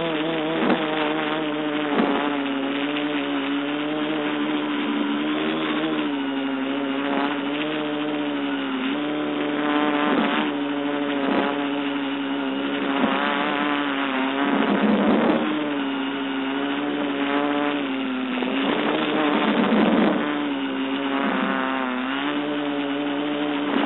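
Quadcopter's electric motors and propellers buzzing steadily, heard close up from a phone strapped to the quadcopter. The pitch dips and recovers a little every few seconds.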